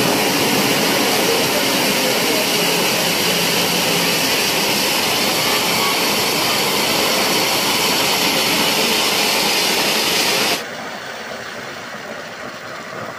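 Cold spark fountains (stage pyrotechnic gerbs) spraying with a loud, steady hiss. About ten and a half seconds in, it drops abruptly to a softer hiss.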